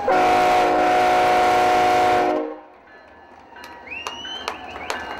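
Locomotive air horn sounding one steady blast of about two seconds, a chord of several tones, that then cuts off.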